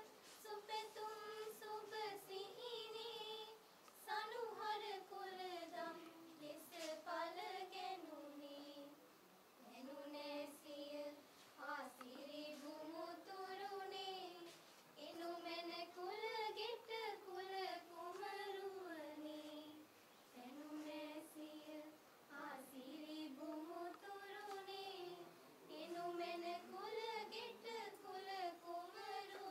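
A group of girls singing a slow melody together in high voices, phrase by phrase with short breaths between.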